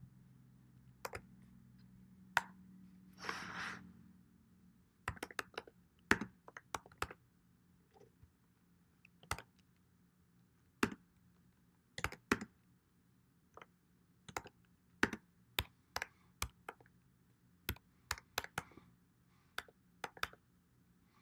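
Typing on a computer keyboard: sharp key clicks in short, irregular runs with pauses between. A brief rustling burst of noise comes a little over three seconds in.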